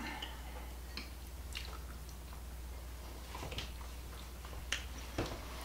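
Quiet chewing of a soft, creamy no-bake dessert, with a few faint clicks of a fork against a plate, over a low steady hum.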